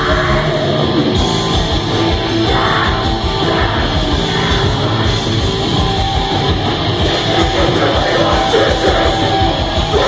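Heavy metal band playing live and loud: distorted electric guitar and drums, with a vocalist singing into a microphone.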